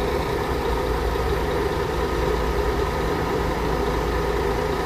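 Diesel coach engine running steadily, a constant hum with no revving or change in pitch.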